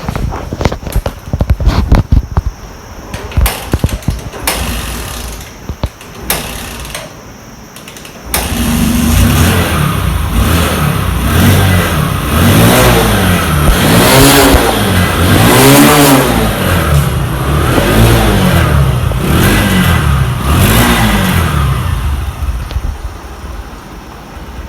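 Clicks and knocks of work on the bike, then a Bajaj Discover 100's single-cylinder engine starts about eight seconds in. It is revved up and down repeatedly, six or seven times, then drops back toward idle near the end.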